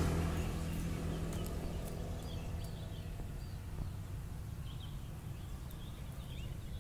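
A passing motorbike's engine fading away over the first second or two, leaving a quiet outdoor background with a few faint bird chirps and light clicks.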